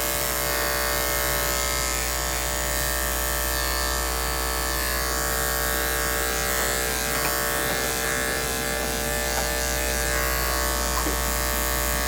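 Electric dog grooming clippers running steadily with an even motor hum, shaving through a puppy's matted coat.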